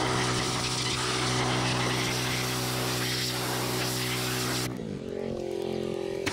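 Pressure washer running, its jet hissing as it blasts dirt off a metal trailer tub. About three-quarters of the way through the spray stops and the machine's pitch wavers as it runs without load. The spray starts again right at the end.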